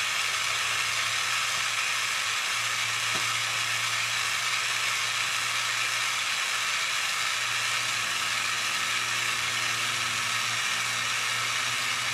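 Torch flame hissing steadily as it heats a cloisonné enamel piece from underneath to fuse the enamel, with a low steady hum beneath.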